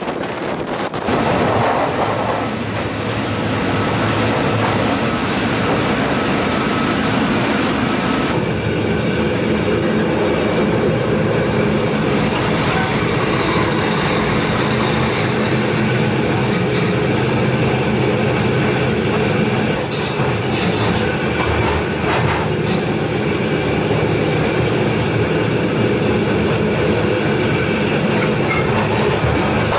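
Freight train running at speed, heard from on board a wagon: a steady loud rumble of wheels on rail with clattering over rail joints and a faint wheel whine. The sound changes abruptly about eight seconds in.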